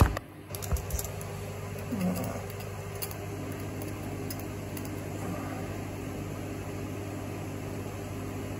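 A knock and a few small clicks as the recording phone is set down face-down, followed by a steady low hum with a light hiss.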